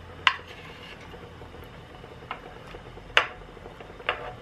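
A wooden spoon and a metal mess tin clacking as slices of spam are scraped out into a pot of stew: a few sharp knocks, the loudest about three seconds in.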